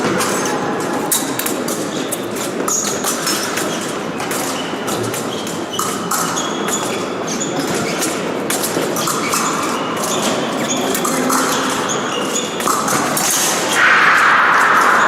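Fencing bout with épées: fencers' feet knocking and shuffling on a metal piste, with sharp clicks of blade contact and short shoe squeaks, echoing in a large hall. Near the end there is a louder rush of noise.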